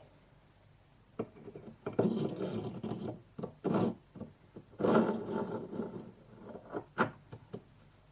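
Machined shaft and lathe tool post handled and fitted together for a test fit: irregular metal scraping and rubbing with sharp clicks. The loudest stretches come about two and five seconds in, with a sharp click near seven seconds.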